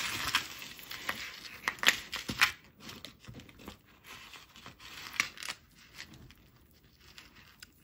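Costume jewelry being handled and untangled: beads and chain clicking and rattling against each other, with some rustling. The clicks are densest and loudest in the first few seconds, then fewer and quieter.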